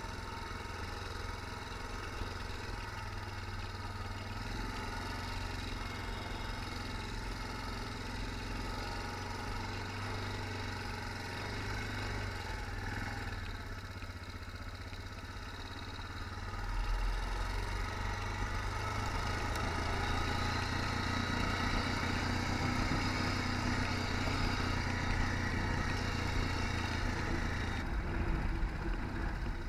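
ATV engine running as the quad is ridden over rough desert terrain. It gets louder a little past halfway and stays louder.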